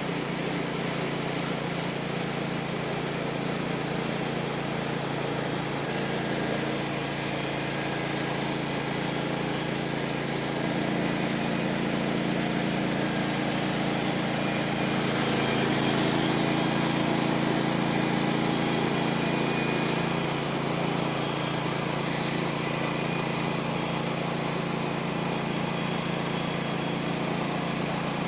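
An engine running steadily, a little louder for several seconds in the middle.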